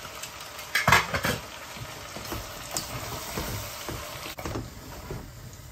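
Food sizzling in a frying pan, with a few clatters of a utensil stirring it about a second in.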